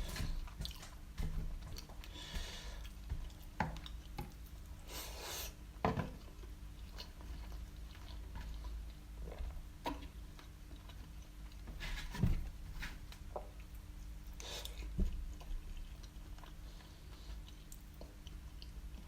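Close-up chewing of a halal snack pack (doner kebab meat, cheese and chips), with scattered short wet mouth clicks and a few brief louder crunches or rustles, over a faint steady hum.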